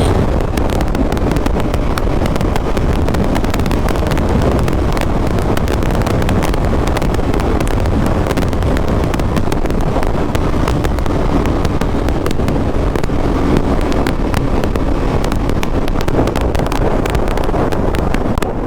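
Heavy, steady wind rush on the microphone while riding a Bajaj Pulsar NS200 motorcycle at speed, with the engine running underneath.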